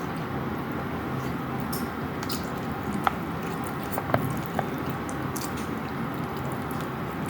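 Close-miked chewing of a mouthful of food, with wet, squishy mouth sounds over a steady background noise. There are three sharp clicks about three to four and a half seconds in.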